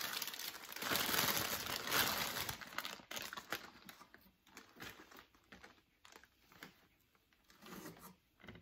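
Clear plastic bag crinkling as hands handle it inside a cardboard box, loudest for the first few seconds. After that come softer, scattered rustles as a fabric costume is lifted out.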